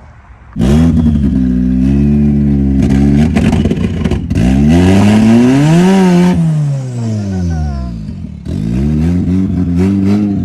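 Turbocharged, engine-swapped Nissan 240SX (S13) revving: the engine comes in suddenly and runs at a steady raised speed, then revs up and back down around the middle, and revs up again near the end.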